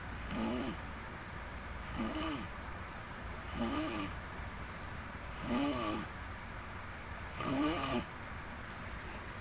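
Snoring: five short snores, each a pitched sound that rises and then falls, coming about every two seconds, with the last two the loudest.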